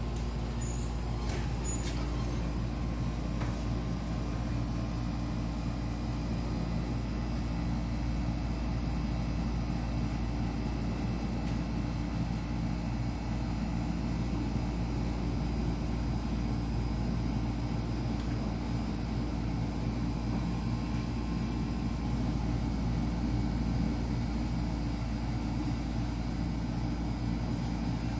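Steady low drone of an idling vehicle engine, with a few light clicks in the first few seconds.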